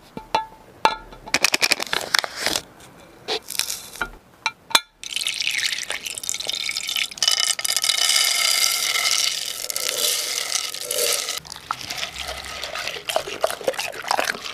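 Dog treats dropped one at a time into a clear storage container, each a sharp click. From about five seconds in, a steady rattling stream of dry kibble and treat cubes pours in.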